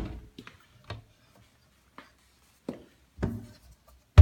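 Kitchen base cabinet being handled: a few separate knocks and taps with quiet between, a sharp knock at the start and another at the very end.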